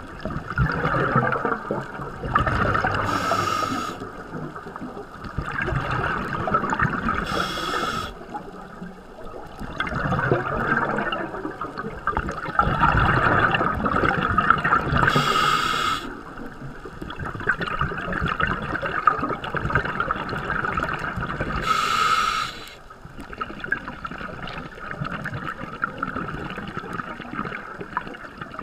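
Scuba regulator breathing heard underwater: slow breaths that swell and fade every few seconds, with a rush of exhaled bubbles about four times.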